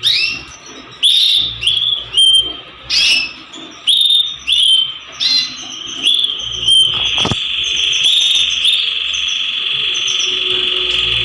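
Domestic canary singing: a series of short, rising chirped notes about two a second, then, from about seven seconds in, one long unbroken trill held on a steady pitch.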